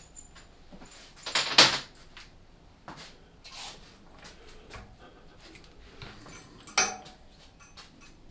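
Hand work on metal parts at a workbench: light clicks and knocks, with a loud short scrape about a second and a half in and another sharp scrape near seven seconds.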